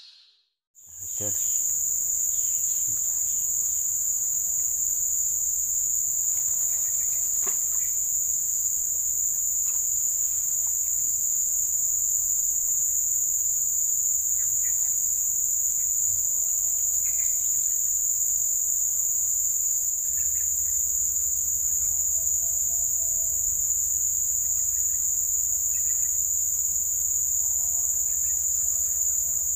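A chorus of insects running in a steady, high-pitched unbroken drone. It starts about a second in.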